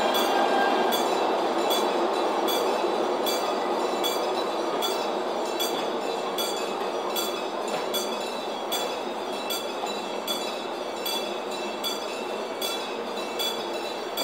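Korail electric locomotive-hauled passenger train rolling slowly past, its coaches giving a steady rumble with regular sharp clicks about one to two a second, slowly fading.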